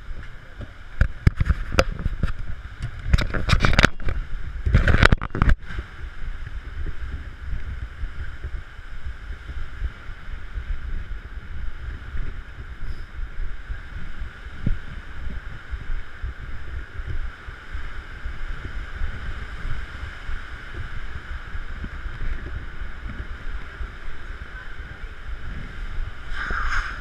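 Wind buffeting the camera microphone on a ship's open deck, with heavy gusts and crackling in the first six seconds, then a steadier rushing noise of wind and sea.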